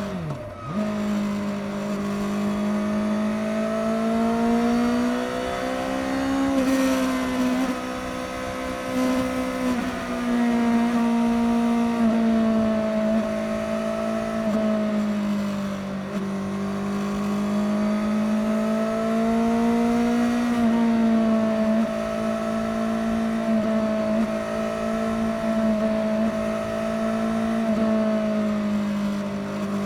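Suzuki GSX-S750 inline-four engine with its stock exhaust, running at steady highway cruising revs, the pitch drifting gently up and down over the noise of the ride. Just after the start the revs dip sharply for a moment and come back.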